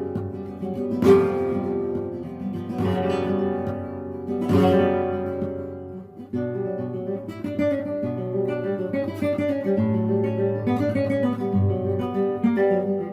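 Acoustic guitar music: three strummed chords that ring out and fade, then, from about six seconds in, a busier plucked melody over a bass line.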